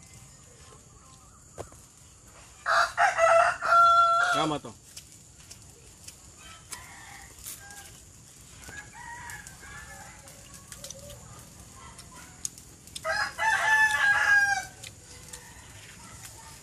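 A rooster crowing twice, about ten seconds apart, each crow lasting about two seconds; the first ends in a falling note.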